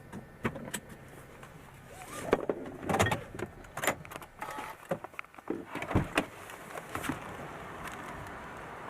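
A string of irregular knocks and clicks, the strongest about three, four and six seconds in, then a steady even noise from about seven and a half seconds on.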